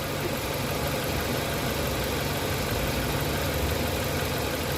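Nissan pickup engine idling steadily.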